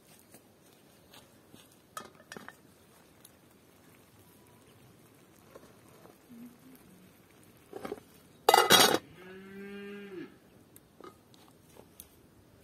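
A cow mooing once for about a second, nine seconds in, just after a loud harsh clatter. Light metallic clinks of a pot lid and cookware come a couple of seconds in.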